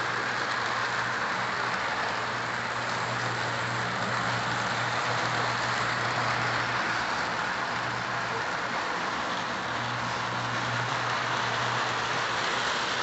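Lionel model train running on its track: the steady rolling whir and rattle of the 4-4-0 General-type locomotive and freight cars' wheels on the rails, with a steady low hum underneath.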